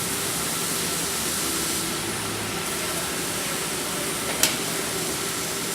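Robotic welding machine running, making a steady hiss, with one sharp click about four and a half seconds in.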